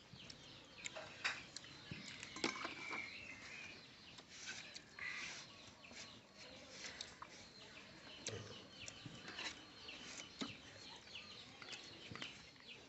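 Faint, scattered chirps and clucks of birds, chickens among them.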